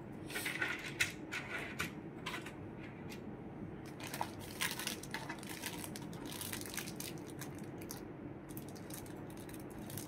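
Wrapping material being handled: irregular crinkling and rustling with small clicks, coming in short bursts.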